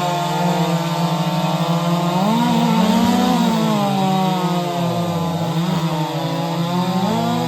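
Modified two-stroke racing chainsaws at full throttle, cutting through a log in a timed race heat. The engine pitch sags under load about five seconds in and picks back up, with more than one saw running at once.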